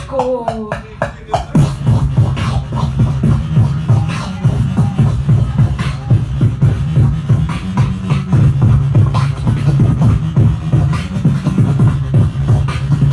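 Live beatboxing: a falling vocal sweep, then from about a second and a half in a held low bass tone under a fast stream of kick and snare sounds made with the mouth.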